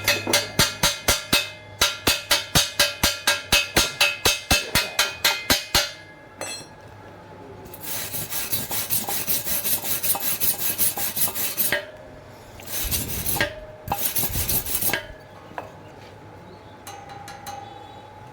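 Hand tools working metal: fast, evenly spaced tapping strikes for about six seconds, then a few seconds of rhythmic scraping strokes, and two short bursts of harsh rasping.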